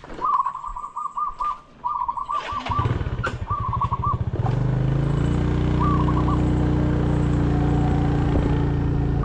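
A motorcycle engine starts about two seconds in, runs unevenly at first, then settles into a steady idle. Before and during the start, a bird calls in short runs of quick repeated notes.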